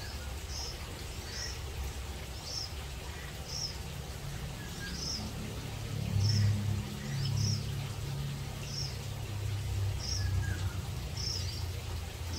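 A bird repeating a short high chirp about once a second. A low hum swells about halfway through and fades again.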